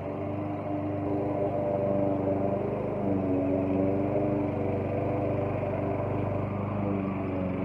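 Walk-behind lawn mower engine running steadily while the mower is pushed across grass.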